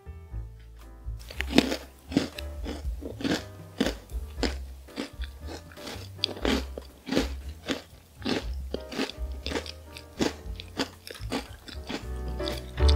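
Close-miked crunching and chewing of a crumble jam cookie, a crisp butter cookie with a streusel topping. The bites and chews begin about a second in and come about twice a second.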